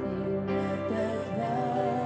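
Live church worship band playing a slow song, with long held notes and gently gliding pitches.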